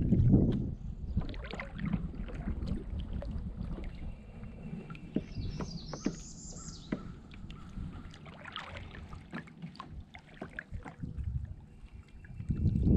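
Water lapping and knocking against the hull of a small fishing boat, with scattered small knocks. Wind gusts rumble on the microphone at the start and again near the end, and there is a brief high chirp about six seconds in.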